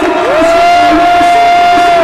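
Basketball crowd cheering, with one voice holding a long yell that rises at the start, stays level for nearly two seconds and then falls away.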